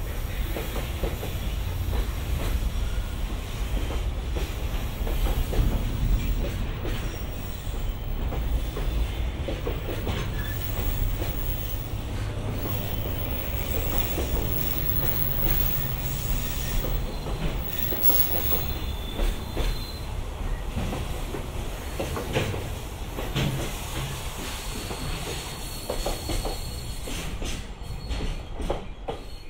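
Freight train rolling past on the rails: a continuous low rumble of wheels with clicking over the rail joints and some high wheel squeal.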